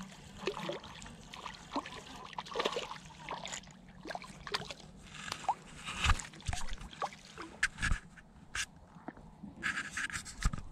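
Small hooked crappie splashing and sloshing at the surface as it is reeled in and lifted out of the water. The sound is a run of irregular small splashes and ticks.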